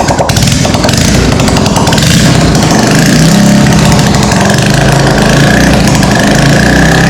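Honda Grom's small single-cylinder engine running loud with a rapid, buzzing firing note, settling into a steadier pitch about two and a half seconds in.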